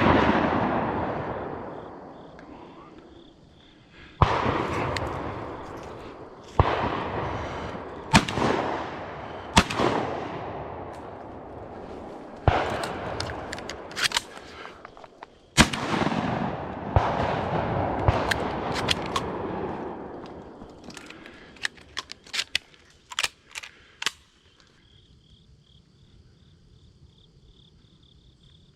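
Shotguns firing during a duck hunt: about a dozen sharp shots over some twenty seconds, each followed by a long rolling echo, then a few fainter pops. Crickets then take over with a steady high trill.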